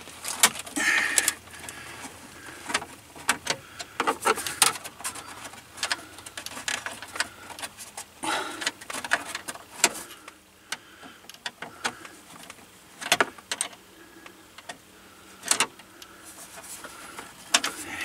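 Irregular clicks, scrapes and rustles of a screwdriver backing a screw out of the plastic dashboard trim of a 2003 Toyota Tacoma, with hands handling the trim panel.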